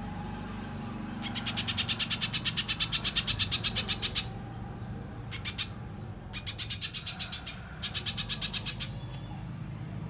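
Little spiderhunter calling: fast runs of high-pitched chipping notes, about ten a second, first a long run of some three seconds, then a brief burst and two shorter runs. A steady low hum lies underneath.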